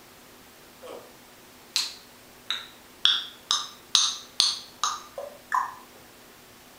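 African grey parrot making a quick series of about nine short, sharp clicking pops over roughly four seconds, starting about two seconds in, each sounding like a knock on a wood block.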